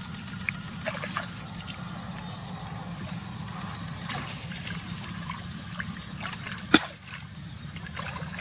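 Water splashing and trickling, with small knocks and a steady low hum underneath; a single sharp knock about two-thirds of the way through is the loudest sound.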